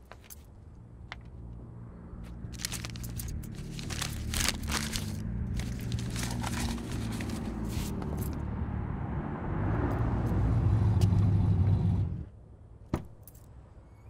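A car pulling up, its engine running and growing louder with scraping and crackling along the way, then cutting off suddenly near the end, followed by a single sharp click.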